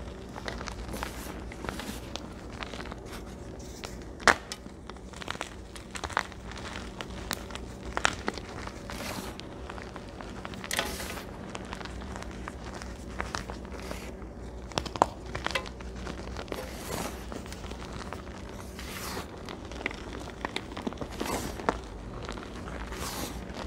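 Hands crushing and squeezing dyed gym chalk blocks in loose holi powder: irregular dry crunches and crackles as the chalk crumbles, with a few softer, longer presses of packed powder, over a faint steady low hum.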